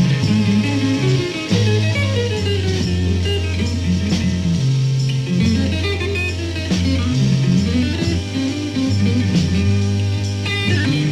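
Psychedelic rock music: an instrumental passage of electric guitar over a bass guitar line, with no singing.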